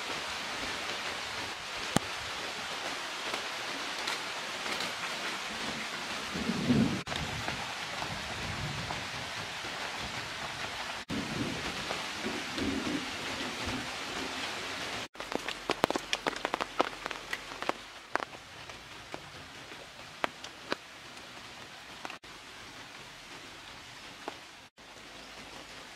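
Steady rain falling, with low rolls of thunder in the first half. After about fifteen seconds the rain is quieter and single drops tick sharply, and the sound breaks off briefly at several cuts.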